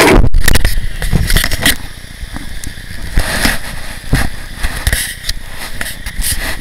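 Rushing water of shallow river rapids, overlaid with irregular crackling and low rumbling of wind and handling noise on a phone microphone.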